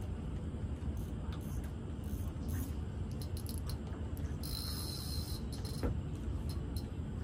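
Insects trilling in short high bursts, the longest lasting nearly a second about halfway through, over a steady low rumble and scattered light clicks.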